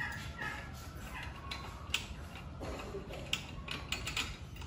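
Small steel parts clicking and clinking as they are handled: U-bolts, nuts and a clamp plate being fitted by hand where a four-leaf spring sits on an axle's spring pad. The clicks are irregular, with a few close together near the end.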